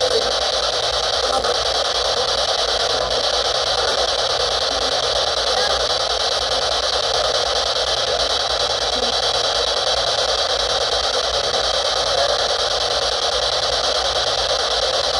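SB-7 spirit box sweeping through radio frequencies, giving off a steady hiss of radio static.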